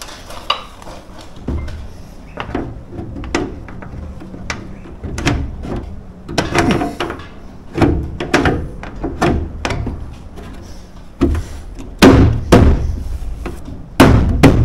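Irregular knocks, rattles and thuds of a sheet-metal rain head being held up, shifted and marked against a metal gutter. The heaviest thumps come about twelve and fourteen seconds in.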